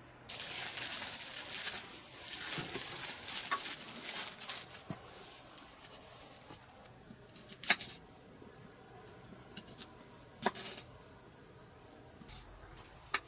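Rustling and crinkling from something being handled for about five seconds, then three sharp clicks a few seconds apart.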